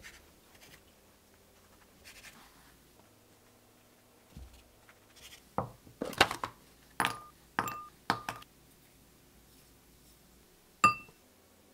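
Kitchen handling sounds: a knife cutting through bread faintly, then a run of sharp clicks and knocks as a plastic food container is opened and butter and sugar go into a small glass bowl, several strikes leaving the bowl ringing briefly. One last sharp clink against the glass bowl near the end.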